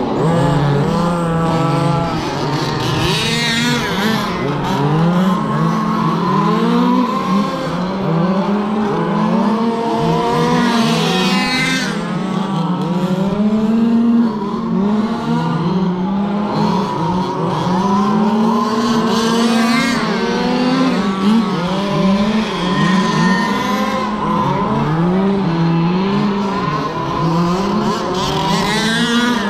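Several radio-controlled cars racing together, their motors whining and rising and falling in pitch as they speed up and slow down around the track. About every eight seconds there is a louder sweep as cars pass close by.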